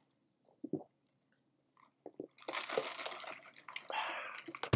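Quiet sip of Coca-Cola through a plastic straw, with a few faint mouth clicks. About halfway in comes a breathy hiss of about two seconds as the drinker lets the cup down and breathes out.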